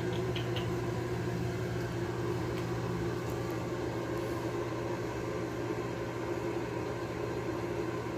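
Steady low mechanical hum of a running motor or fan, with a few faint ticks in the first half-second.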